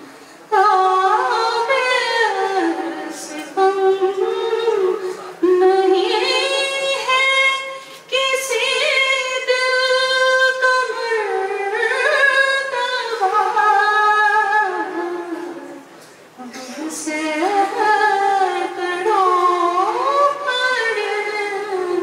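A woman singing solo and unaccompanied into a microphone, holding long notes and sliding between pitches in ornamented phrases, with brief pauses for breath between them.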